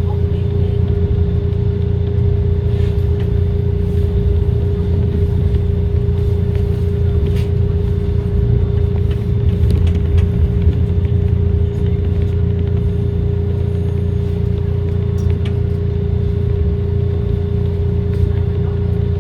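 A SEPTA Kawasaki light-rail trolley car running steadily along its route: a continuous low rumble of wheels and motors with a constant steady hum, and a few faint ticks.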